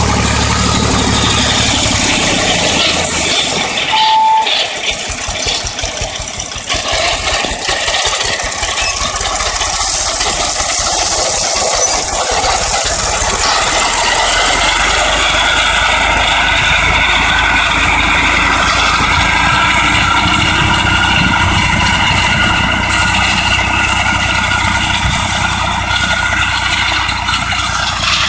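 IMT 549 DV tractor's diesel engine running steadily under load while the Vicon 165 rotary drum mower behind it spins and cuts meadow grass, with a rattling clatter from the mower and tractor.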